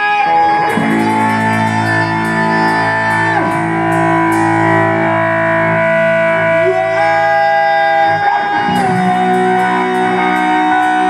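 Live rock music led by a distorted electric guitar, holding long notes and sliding between pitches, with light high ticks of a cymbal or hi-hat above it.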